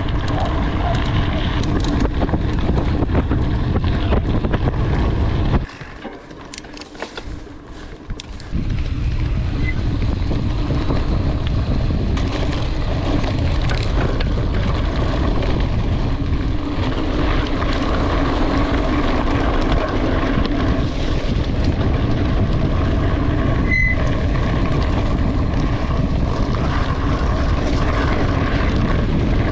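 Wind rushing over the microphone and knobby mountain-bike tyres rumbling over gravel and grass track while riding at speed, with a quieter stretch of about three seconds a few seconds in.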